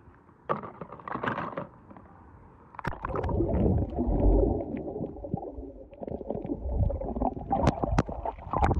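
Water splashing at the surface of a lake, then the muffled rumbling and gurgling of water heard with the microphone underwater, broken by a few sharp clicks near the end.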